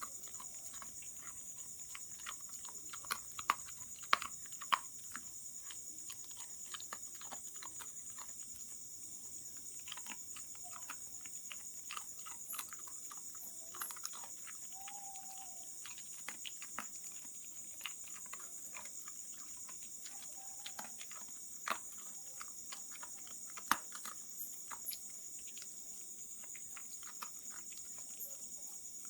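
Dog eating dry kibble: irregular crisp crunches and clicks as the pellets are chewed, loudest around the first few seconds.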